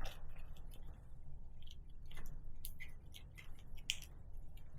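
Faint, irregular light clicks and ticks, a few scattered across a few seconds, over a low background hum.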